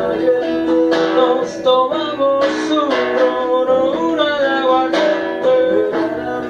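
Band playing an instrumental passage: guitar strummed about once a second under a moving melody line.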